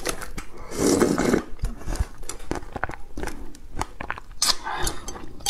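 A person slurping noodles and soup straight from the bowl, with one longer noisy slurp about a second in. Wet chewing and mouth clicks follow.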